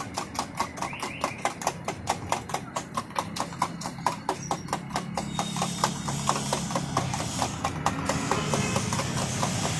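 Eggs being beaten by hand in a small steel tumbler: a quick, steady clinking of the utensil against the metal, about five strokes a second, growing softer and less regular in the last few seconds.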